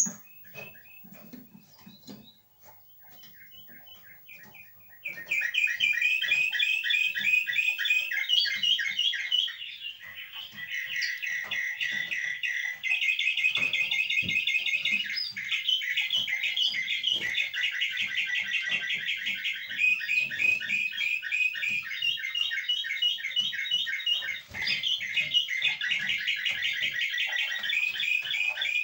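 Male Eurasian siskin singing a courtship song. After a few seconds of scattered soft notes it breaks, about five seconds in, into a long run of rapid twittering trills that change phrase every second or two.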